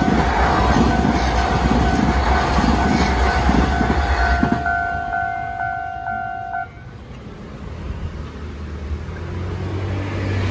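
TRA EMU3000 electric multiple unit rumbling past over a level crossing, with the crossing's warning signal sounding a steady ringing tone. The train's rumble fades about four and a half seconds in, and the crossing signal cuts off about two seconds later. Near the end a low engine hum starts to rise.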